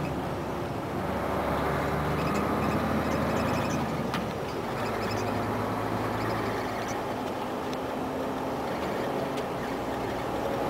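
Mercedes-Benz Actros 1848's V6 diesel engine running steadily under way, heard inside the cab together with road and tyre noise. About four seconds in there is a single click and the engine note drops slightly.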